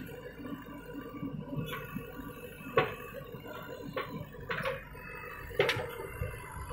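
JCB 3DX backhoe loader's diesel engine and hydraulics running steadily with a whining hum as the bucket dumps soil into a tractor trolley, with about six sharp knocks roughly a second apart.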